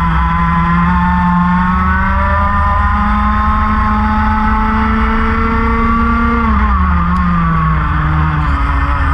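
Racing kart engine running at high revs, its pitch climbing slowly, then falling sharply about six and a half seconds in and settling at lower revs.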